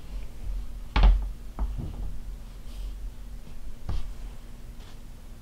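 Knocks and taps of an iPad and other objects being handled on a desk. A sharp knock comes about a second in, two lighter taps follow soon after, and another knock comes near four seconds.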